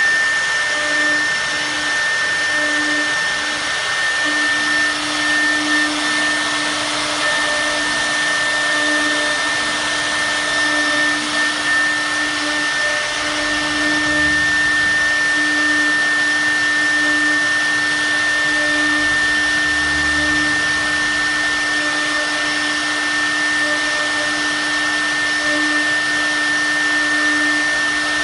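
CNC router with a 6 kW HSD spindle running steadily: a constant whine with a lower hum beneath it, over a loud, even rushing noise.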